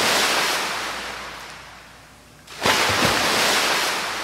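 Ocean surf: a wave breaks and washes out, fading away, and a second wave breaks about two and a half seconds in and slowly fades.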